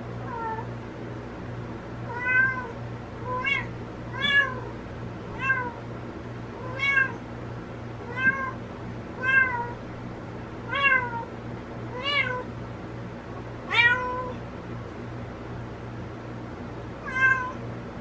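A cat meowing over and over, about a dozen high, short calls roughly a second apart, with a pause of a few seconds before a last one near the end: calling for a missing kitten while searching for it.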